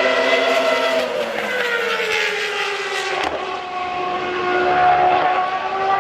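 The Williams FW14B's Renault 3.5-litre V10 Formula One engine at high revs. Its shrill note sinks in pitch for about two seconds, breaks off abruptly a little after three seconds in, then climbs again as the car pulls away.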